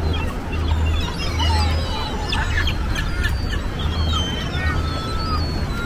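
A flock of gulls calling, many short overlapping cries, busiest about two to three seconds in, over a steady low rumble.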